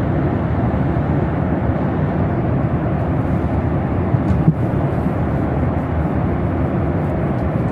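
Jet airliner in flight: loud, steady engine and air noise inside the passenger cabin.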